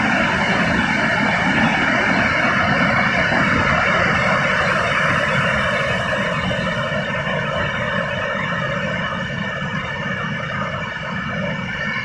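Steady rushing of Burney Falls, a 150-foot waterfall, pouring into its pool, easing a little near the end.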